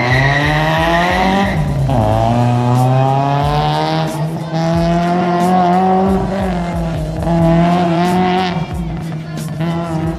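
Race car engine revving hard on an autocross run: the pitch climbs, drops briefly as the car comes off the throttle about a second and a half in, climbs again and falls away near the end. A high tyre squeal sounds over the first second or so.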